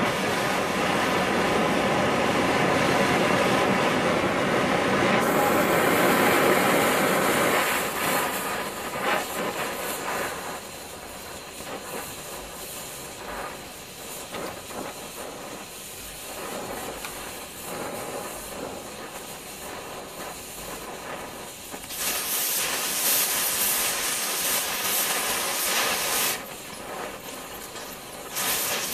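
MagneGas2 cutting torch flame blowing on a piece of tungsten: a loud, even rushing hiss that drops after about ten seconds to a quieter, crackling burn, then turns sharp and loud again for a few seconds after about twenty seconds and once more near the end.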